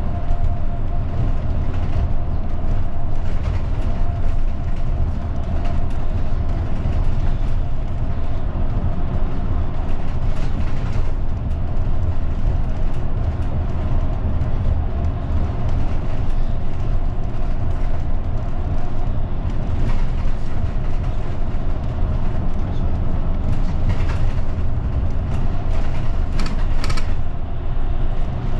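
Route bus heard from inside the cabin while driving: steady engine and road rumble with a faint steady whine, and a few light rattles or clicks near the end.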